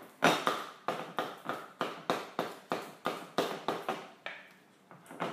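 Wooden spoon beating softened cream cheese in a glass mixing bowl: a run of quick knocks against the glass, about three a second, easing off about four seconds in.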